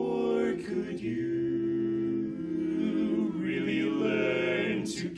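Barbershop quartet singing a cappella: four men's voices holding sustained close-harmony chords, changing chord about a second in and again a little past three seconds.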